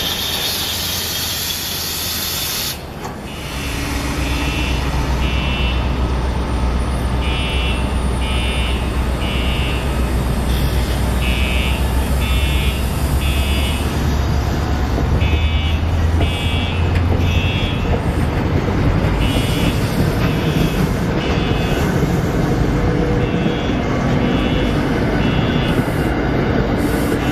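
Fire alarm sounding the temporal-three evacuation pattern: three short high beeps, a pause, then again, about every four seconds. Under it runs a deep, steady engine rumble, and a loud hiss in the first three seconds cuts off suddenly.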